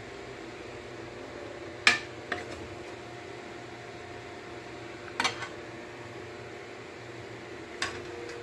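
A metal serving spoon knocking against the pan and plate while rice is dished out: three sharp clinks, about two, five and nearly eight seconds in, the first the loudest, over a steady background hum.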